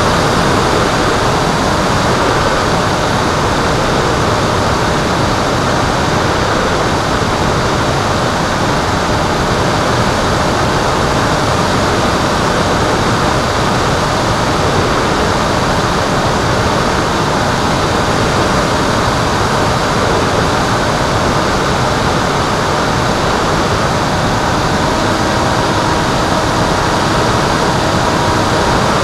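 Steady rush of wind noise over the onboard camera of an FPV Penguin foam RC airplane in flight, with a faint steady motor whine coming in near the end.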